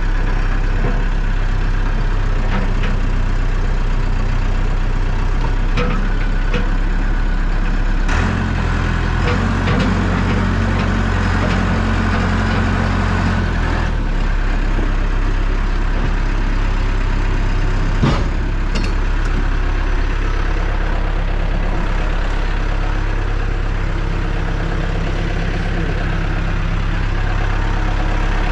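Caterpillar 420D backhoe's diesel engine idling steadily. For about six seconds, starting roughly a third of the way in, its note is fuller and stronger. There are a couple of short sharp clicks, one about two-thirds of the way through.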